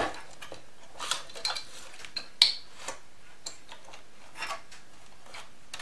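Scattered clicks and short scrapes of hard plastic and metal as the battery connector is worked back onto the APC Smart-UPS 750's battery pack by hand, with one sharp click about two and a half seconds in.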